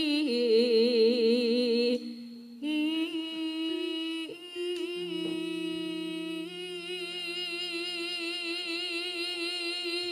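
A sinden, a Javanese female gamelan singer, sings a slow, drawn-out vocal line through a microphone. The first notes waver with vibrato, there is a brief break about two seconds in, and then come long steady held notes, with a lower held note sounding beneath them for a few seconds midway.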